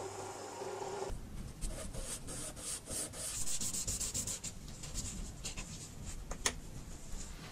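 A drill press motor hums while a small washer spins against abrasive cloth, then stops about a second in. After that, a small brass washer is rubbed by hand back and forth across sandpaper wrapped around a wooden block in quick scratchy strokes, about three a second, with a sharp tap near the end.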